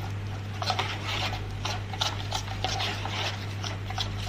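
A spoon stirring and scraping thick white sauce with spices in a bowl, in short irregular strokes, over a steady low hum.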